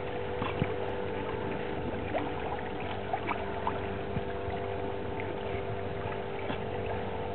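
A sailing trimaran under way in light air: a steady wash of water and air noise, with a faint steady hum under it and a few small ticks.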